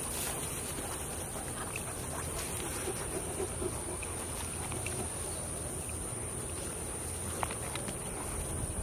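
Faint sounds of two Great Danes tussling over a toy in the grass, under a steady outdoor hiss of wind on the microphone and a constant high whine.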